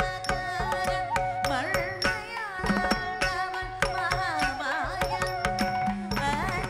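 Live Carnatic music ensemble with veena accompanying Bharatanatyam dance: a steady drone under a gliding, ornamented melody, with drum strokes throughout.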